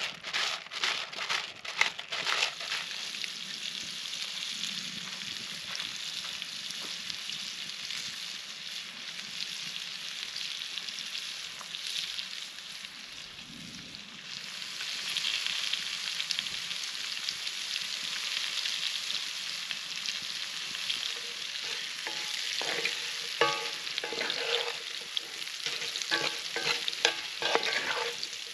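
Diced potatoes sizzling steadily in a cast-iron skillet over a campfire. A few clicks come in the first couple of seconds, and from about three-quarters of the way in a spatula scrapes and taps against the pan as the food is stirred.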